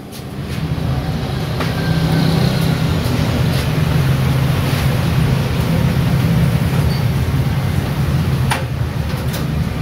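A motor starts up and runs with a steady low hum, with a few faint clicks over it.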